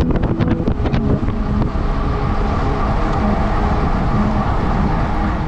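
Wind rushing over an action camera's microphone and tyres humming on asphalt as a road bike is ridden at speed, a steady rumble, with a few sharp clicks in the first second or so.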